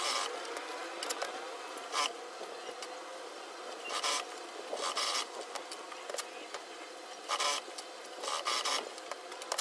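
Industrial lockstitch sewing machine stitching a black fabric panel in short spurts: about seven brief bursts a second or so apart, over a steady background hum.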